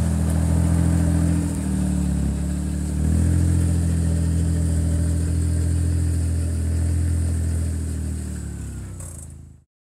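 John Deere Gator utility vehicle's petrol engine running under load as the 4x4 climbs a grassy slope. The revs dip briefly, then pick up again about three seconds in, and the sound fades and cuts off near the end.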